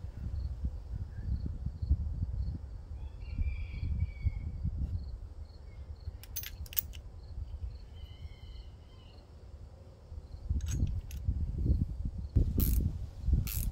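An insect chirping faintly and evenly, about twice a second, with two short faint chicken calls. A few sharp metallic clinks of hand tools come as a push mower's carburetor is taken off: two about halfway through and several more near the end, over a low rumble.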